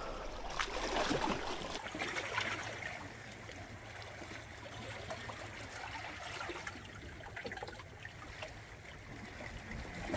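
Seawater lapping and trickling: a steady, fairly quiet wash of many small splashes, a little louder in the first couple of seconds.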